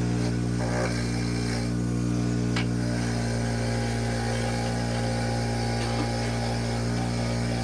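Ryobi bench grinder running at full speed with a steady motor hum, as a small carbon-fouled turbo part held in pliers is brushed against its wire wheel to clean off the carbon.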